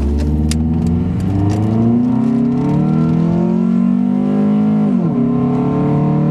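Honda K24 2.4 L four-cylinder with a K&N cold-air intake and no intake resonator, under full-throttle acceleration, heard from inside the cabin. The engine and intake sound climbs in pitch, drops sharply about five seconds in as the automatic transmission upshifts, then climbs again. It sounds angrier with the new intake.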